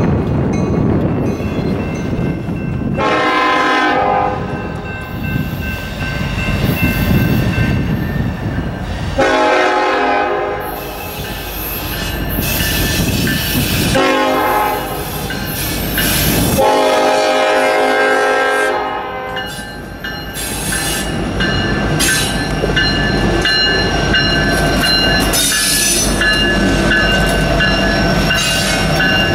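Diesel locomotive air horn sounding four separate blasts over the rumble of a train, then the rumble of a Norfolk Southern diesel locomotive and its train rolling past close by.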